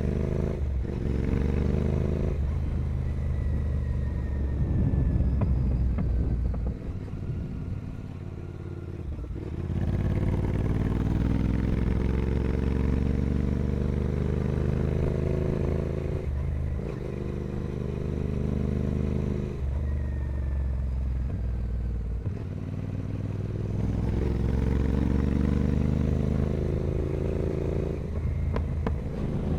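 Royal Enfield Continental GT 650's parallel-twin engine through a Carbox Racing full 2-into-1 carbon exhaust, ridden hard. The engine note climbs in pitch through each gear, with a short break at every gear change, and eases off in between.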